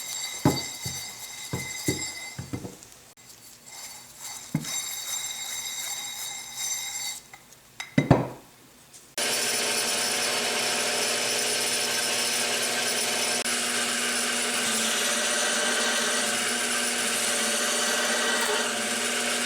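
Steel parts clinking and tapping, with a short metallic ring, as a threaded steel riser shaft is test-fitted in a nut plate. About nine seconds in, a machine tool starts abruptly and runs steadily, in keeping with drilling spanner wrench holes in the nut plates.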